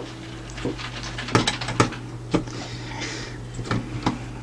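Scattered sharp clicks and taps of a screwdriver and hand working at the mains power switch inside the open metal chassis of a Radiotehnika U-101 stereo amplifier, as the switch is being taken out.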